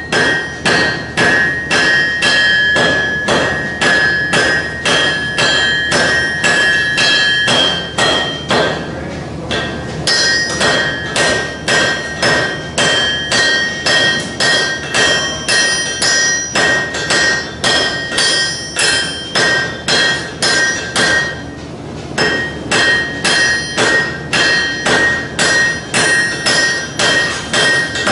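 Blacksmith's hand hammer striking a tool held against a glowing steel bar set upright on the anvil, about two blows a second, with the anvil ringing between blows. The hammering pauses briefly twice, about nine seconds in and again about twenty-two seconds in.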